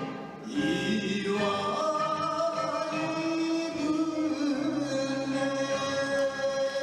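Singing with musical accompaniment, the voice holding long notes; the sound dips briefly about half a second in.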